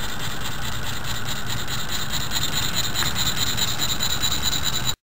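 Small homemade Stirling engine running steadily on the heat of a spirit lamp, its cranks, connecting rods and flywheel turning. The sound cuts off suddenly near the end.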